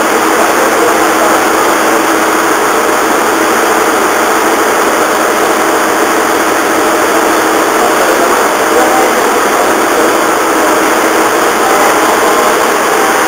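Steady engine noise from the diesel generator of a JR East HB-E300 diesel-electric hybrid train idling at the platform, an even unbroken hum.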